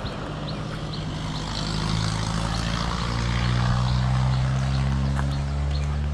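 A motor vehicle's engine running at a steady pitch, growing louder over the first few seconds and then holding.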